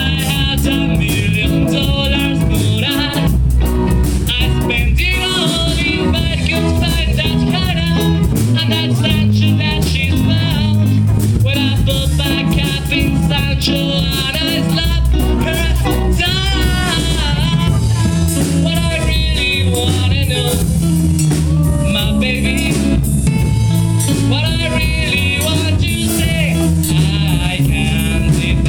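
Rock band playing a song: sung vocals over electric guitar, bass and drum kit with a steady beat.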